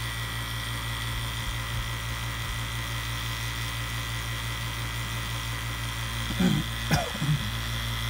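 CPS VPC2SU single-stage 115-volt HVAC vacuum pump running steadily, pulling a system down to around 400 microns. A few short knocks come about six and a half to seven seconds in.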